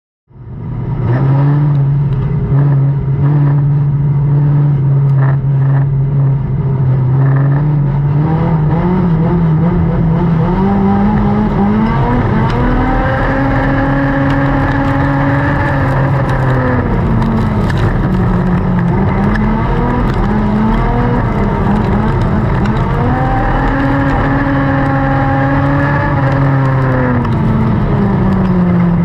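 Dirt-track race car's engine heard from inside the cockpit, cutting in abruptly and running at a steady speed at first. About twelve seconds in it begins revving up and easing off twice, as the car accelerates down the straights and lifts for the turns.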